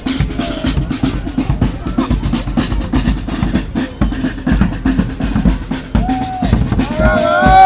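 A parade drum band playing a fast, steady beat of snare and bass drums. Near the end a loud pitched call, rising then falling, comes in over the drumming.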